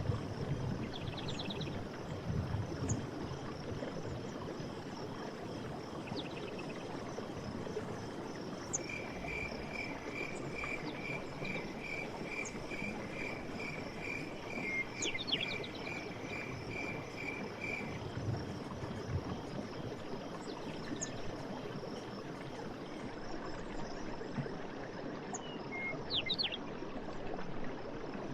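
Forest ambience of running water with a steady high trill of insects. In the middle, a creature calls one short note about twice a second for some nine seconds, and birds give brief chirps about halfway and again near the end.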